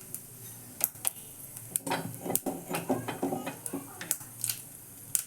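Mustard seeds popping and crackling in hot coconut oil in a small tempering pan: irregular sharp pops, several a second.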